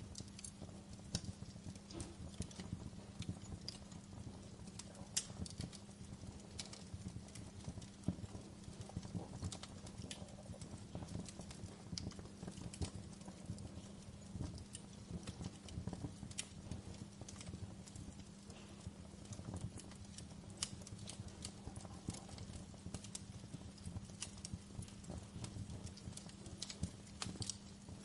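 Wood fire burning in a fireplace: irregular sharp crackles and pops of burning wood over a steady low rumble.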